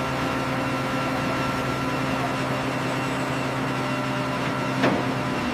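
Steady mechanical hum of workshop machinery, with a single sharp metallic clank near the end.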